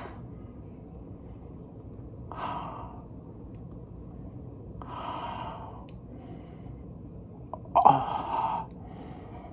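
A man's breathy gasps and exhales through an open mouth, four of them a couple of seconds apart. The last one is the loudest, near the end, and is sharper.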